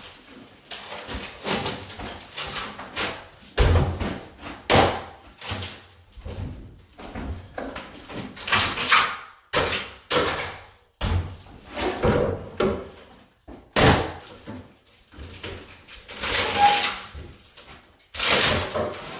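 A wooden cabinet being worked on by hand: irregular knocks and bangs of wood, with scraping and rattling between them.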